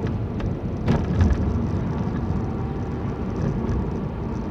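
Car driving, with steady engine and road noise heard from inside the cabin and a short knock about a second in.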